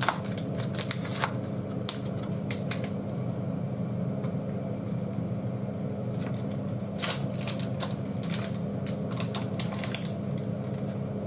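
Box and plastic tray of Kokumaro curry roux being opened by hand: crackling and clicking packaging about a second in, and again in a longer run of clicks from about seven to ten seconds in, over a steady low hum.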